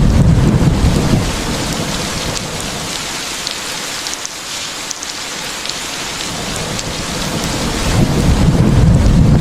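Steady heavy rain with rolling thunder: a low rumble at the start dies away over the first second or two, and the thunder builds again about eight seconds in. Scattered raindrop ticks stand out over the rain in the quieter middle.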